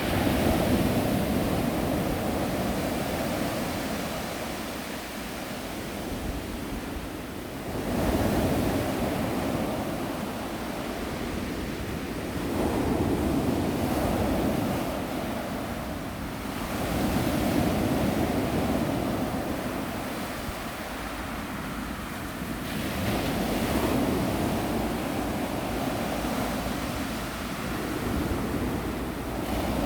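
Sea waves breaking and washing up the shore, each surge swelling and fading over about five seconds.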